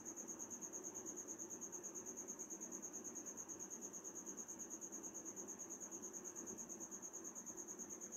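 Faint, steady high-pitched insect chirping, pulsing evenly about eight times a second, over a low background hum.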